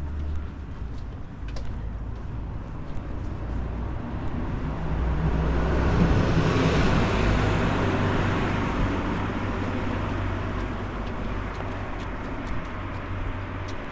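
A motor vehicle passing on the street: its engine and tyre noise swell to a peak about halfway through, then slowly fade.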